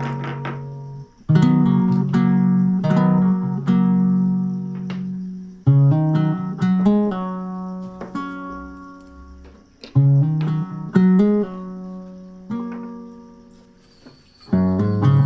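Background music: plucked acoustic guitar playing slow chords, each new chord struck and then left to fade over a few seconds.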